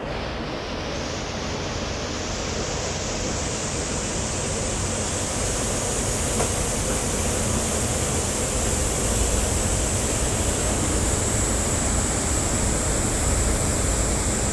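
Fast passenger boat under way: a steady rush of engine, water and wind noise that grows steadily louder, as when the boat picks up speed.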